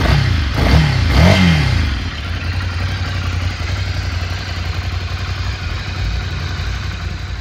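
2016 Ducati Scrambler Urban Enduro's 803 cc air-cooled L-twin running at idle, given three quick throttle blips in the first two seconds, then settling back to a steady idle.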